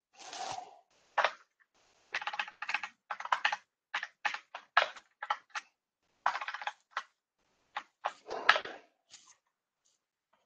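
Computer keyboard keys tapped in short quick runs with pauses between, deleting typed text.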